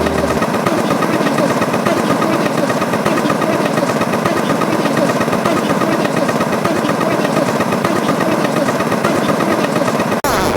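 A steady, rough, engine-like running noise that cuts off abruptly near the end.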